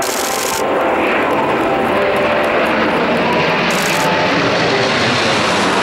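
Steady, loud jet roar of four Kawasaki T-4 jet trainers flying overhead in formation.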